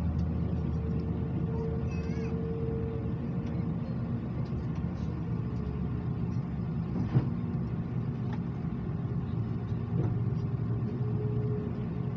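Airbus A330 cabin before pushback: a steady low hum and rumble with a constant tone that fades about four seconds in and comes back near the end. A single sharp knock about seven seconds in.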